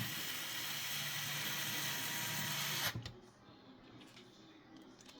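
Small electric screwdriver running steadily for about three seconds, driving a screw into the radio head unit's casing, then stopping; a few faint clicks follow.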